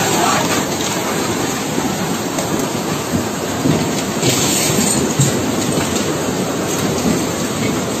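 Muddy floodwater rushing down a street: a steady, loud roar of fast-moving water.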